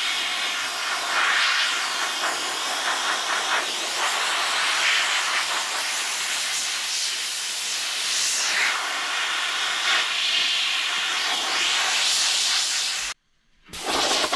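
Pressure-pot sandblaster nozzle blasting: a loud, steady hiss of compressed air and sand that wavers a little. It cuts off suddenly about a second before the end, then comes back as a short burst.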